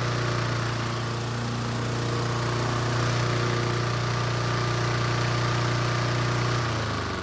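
Toro Commercial walk-behind mower's four-stroke engine running steadily, now that a repaired choke flap lets it start without gas in the carburetor. Near the end its speed drops and it begins to wind down.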